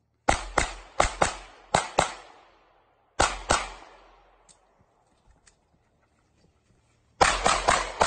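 Pistol shots fired in quick strings during an IPSC practical shooting stage: about six shots in the first two seconds, a pair about three seconds in, then a fast burst of five or so near the end, each crack followed by a short echo.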